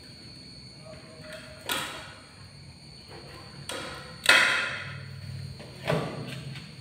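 A plate knocking and scraping on a tiled floor as a monkey and a kitten eat rice from it. There are four sudden knocks, and the loudest comes a little after the middle.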